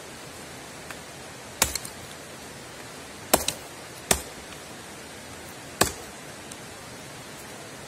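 Benman survival hatchet, with a 600 g carbon-steel head on a fiberglass handle, chopping into dry dead wood: four sharp strikes at uneven intervals, the second and third close together.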